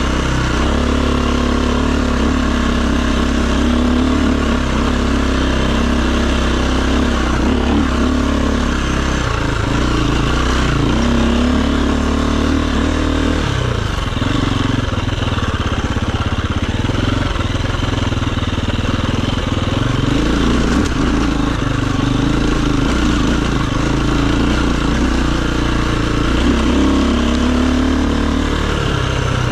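Enduro dirt bike engine running continuously while being ridden, its pitch rising and falling repeatedly with throttle changes.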